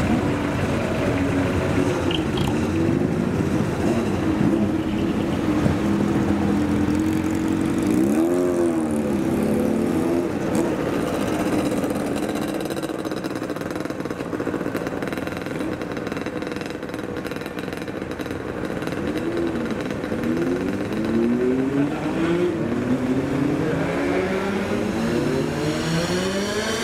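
Decorated trucks driving past with their engines running. The engines are revved, with a rise and fall in pitch about eight seconds in and repeated rising revs over the last several seconds.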